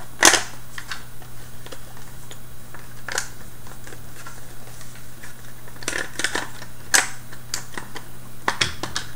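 Light plastic clicks and knocks from the Scribbler 2 robot's plastic shell and parts being handled and fitted back together, in scattered single taps with a quick run of them about six to seven seconds in, over a steady low hum.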